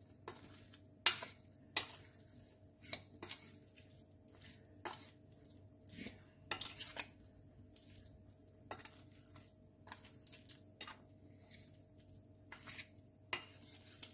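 Metal spoon stirring paneer cubes through a thick yogurt-and-spice marinade in a bowl, the spoon knocking and scraping against the bowl in irregular clinks. The loudest clinks come in the first two seconds.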